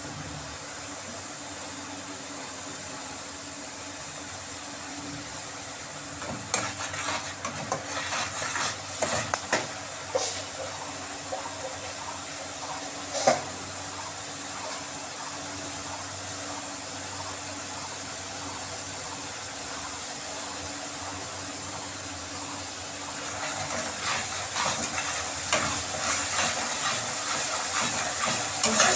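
Food frying in a pot with a steady sizzling hiss, while a spatula stirs and scrapes against the pot in clattering spells, starting about six seconds in, with one sharp knock near the middle and busier stirring over the last few seconds.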